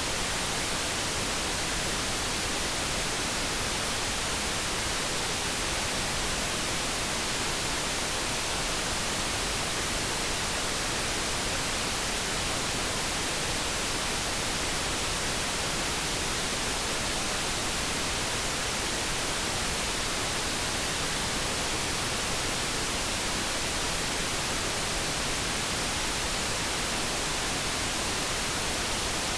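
Steady synthetic background noise: an even, unchanging hiss with no tones or events standing out.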